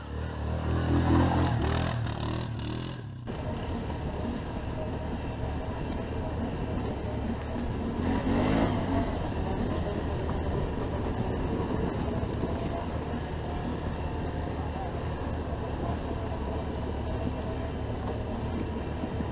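A quad engine swells loudly as another ATV comes up close, then, after a sudden change, a Can-Am ATV's engine runs steadily under way on a dirt forest track.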